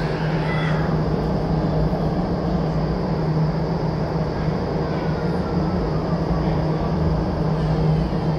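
Vertical wind tunnel for indoor skydiving running at flying speed: a steady rush of air from its fans with a constant low hum underneath.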